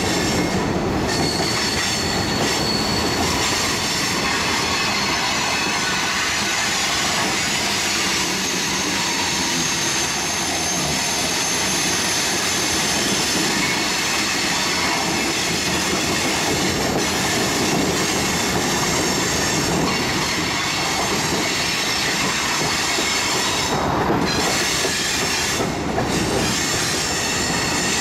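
Freight train cars rolling past: a steady rumble of steel wheels on rail, with high, steady wheel squeal ringing over it.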